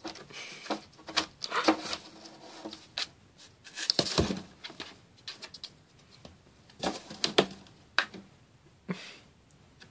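A cat's paws and claws scrabbling and scratching on the floor and sides of a cardboard box in irregular bursts as it bats at yarn, with a few sharper knocks against the cardboard.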